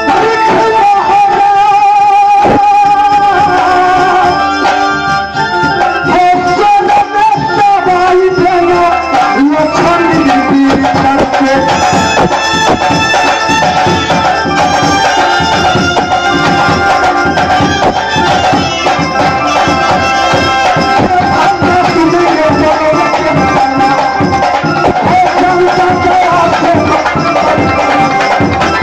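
Loud live Indian folk music: hand drums beating a steady rhythm under a sustained, wavering melody line.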